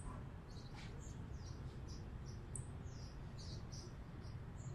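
Small birds chirping faintly: a scattered run of short, high, falling chirps, a few each second, over a low steady room hum.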